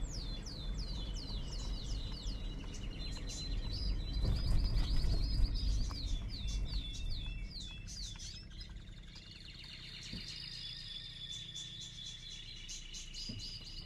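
Several birds singing: runs of quick downward-sweeping chirps, about three a second, alternating with high rapid trills. A low steady rumble runs underneath.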